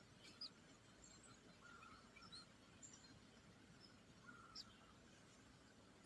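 Faint outdoor background with a few short, high bird chirps scattered through it, the clearest about half a second in and near the middle.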